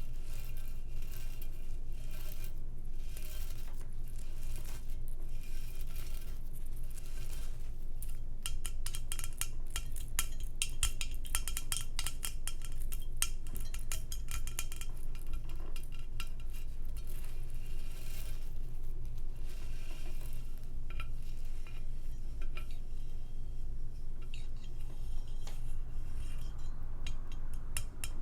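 Cutlery clicking and scraping against a dish while eating, in quick runs of clicks, busiest around the middle, over a steady low hum.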